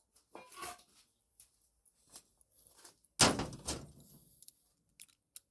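Clicks and clunks of hands working on an engine while its wiring harness is pulled off, with one loud clunk a little after three seconds in.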